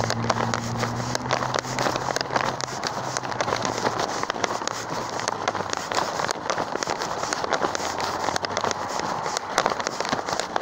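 Dense, irregular crackling and rustling from a phone carried by someone walking, its microphone rubbing against hand or clothing. A low steady hum fades out in the first few seconds.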